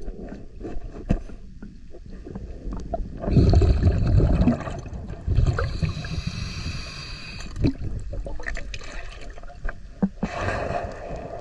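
Underwater: a scuba diver's regulator breathing, a bubbling exhale rush followed by hissing inhales, with scattered clicks and scrapes from hull-cleaning work in between.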